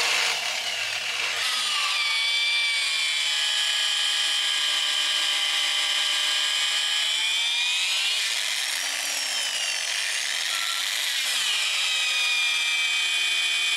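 Corded electric drill with a long drill bit boring deep into thick hardwood timber, running steadily. Its motor whine dips and recovers a few times as the bit loads up in the wood.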